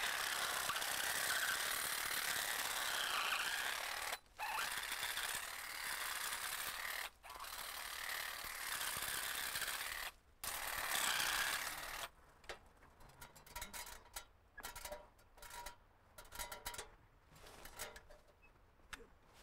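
Handheld powered hedge shears running and cutting through leafy hedge growth overhead, the buzz wavering in pitch as the blades bite. About twelve seconds in the motor stops, and scattered light clicks and knocks follow as the aluminium ladder is handled.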